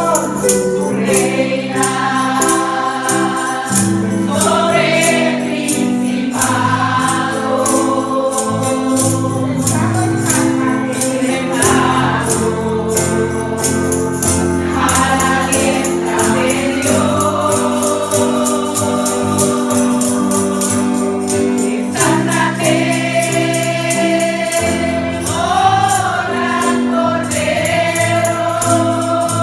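Live gospel praise music: voices singing long held notes over a band with sustained bass, with percussion, likely tambourine, keeping a steady beat.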